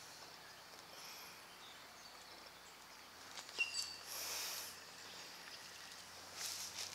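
Faint outdoor ambience with a few short high chirps a little past three seconds in, and a brief rustling hiss around four seconds in.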